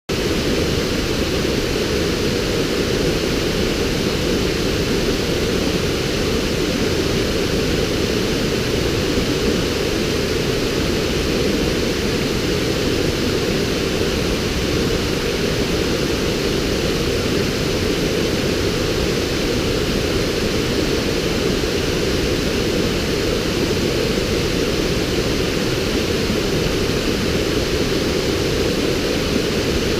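River waterfall pouring over rocks: a loud, steady, unbroken rush of water.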